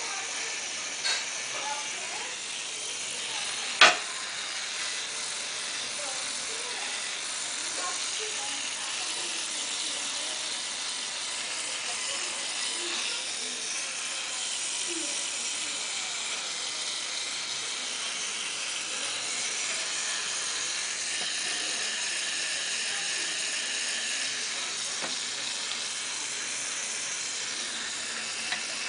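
LEGO Technic electric motor driving the gears and axles of a model truck's rear drivetrain: a steady mechanical whir and gear clatter. A single sharp click about four seconds in.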